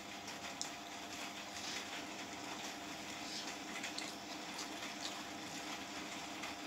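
Hand mixing rice and chicken curry on a plate and chewing: faint scattered soft clicks over a steady background hum.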